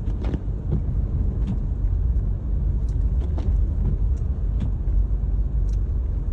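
A car driving, heard from inside: a steady low rumble of engine and tyres on the road, with scattered faint clicks and taps.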